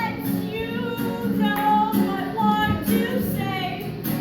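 Voices singing a pop-style song together, moving through held sung notes.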